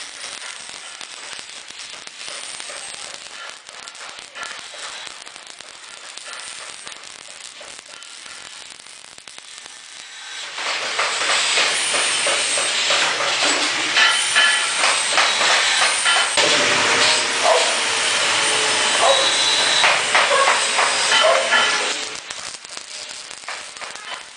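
Metalworking noise, a steady hiss and crackle such as welding or cutting makes. It grows louder and fuller about ten seconds in, then drops back shortly before the end.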